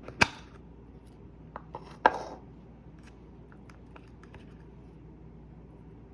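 Small objects handled close up: two sharp snaps about two seconds apart, each followed by a brief rustle, with a few lighter clicks between them and faint ticks afterwards.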